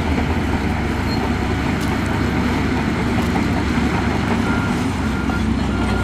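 Heavy diesel earthmoving machinery running: a steady low engine rumble under dense mechanical noise, with a few faint short high beeps near the end.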